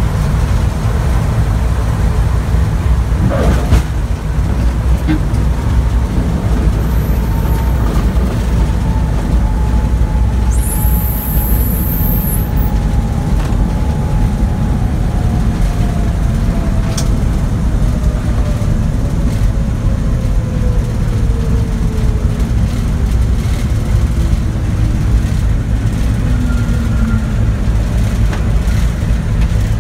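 Heavy, steady rumble inside the nose of a B-29 Superfortress rolling out along the runway after landing: its four radial engines throttled back, with airframe and wheel noise. A tone slides slowly down in pitch over about twenty seconds, and a single knock sounds a few seconds in.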